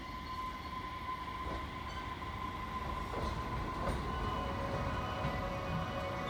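Electric train running at a station, a low rumble slowly growing louder, with a steady high tone throughout and a few faint clacks.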